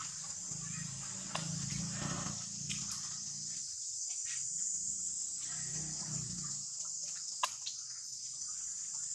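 Steady high-pitched drone of insects, with a few faint clicks and one sharper click near the end.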